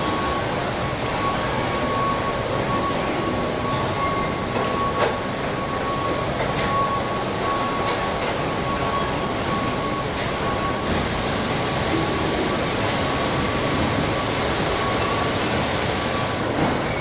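Steady machinery din of a car-body assembly line with industrial robots at work, carrying a thin, steady whine that stops near the end and a few faint clicks.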